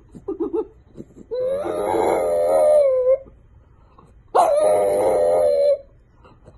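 French bulldog howling: a few short low whimpers, then two long wavering howls of a second or two each, the second starting on a sharp high note that drops and holds.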